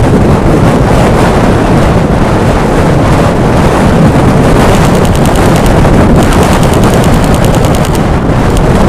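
Strong wind buffeting the microphone, a loud, continuous rumble with rapid crackling.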